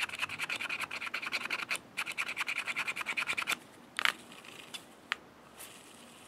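Cloth rag rubbed quickly back and forth over a revolver's cylinder and frame, wiping off excess oil: a fast run of scratchy strokes that stops about three and a half seconds in, followed by a few light clicks.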